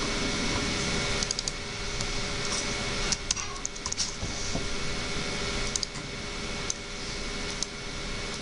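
Typing on a computer keyboard: scattered key clicks in short runs, busiest about three to four seconds in, over a steady hum.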